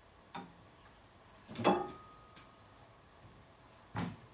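Wooden piano keys of a Steinway model B, on their keyframe out of the piano, being pressed down and let up by hand, giving a few separate knocks. The loudest is about a second and a half in. The keys are being tried by touch for key depth and aftertouch during regulation.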